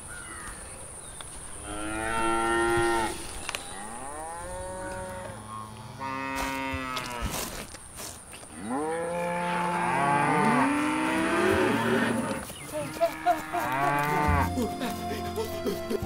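Cattle mooing: a string of about five long, drawn-out moos, some overlapping in the middle. Music starts near the end.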